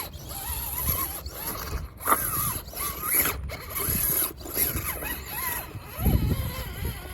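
Radio-controlled scale crawler's electric motor and gear drivetrain whining, rising and falling in pitch with the throttle and stopping briefly several times. Low bumps come from the truck working over the course, the loudest about six seconds in.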